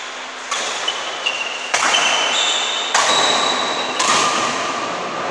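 Badminton rally: rackets strike the shuttlecock four times, about a second apart.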